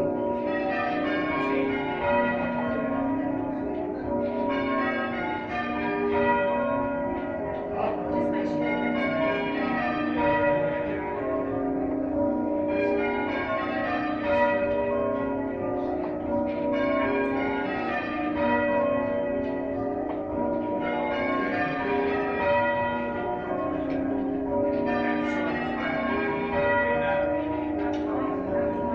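Church bells rung by a band of bell ringers, one bell striking after another in a steady, unbroken sequence with a rhythmic swell about every two seconds.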